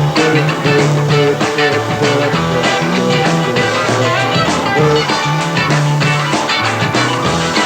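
Rock band playing an instrumental passage with no singing: guitar over a moving bass line and a steady drum beat.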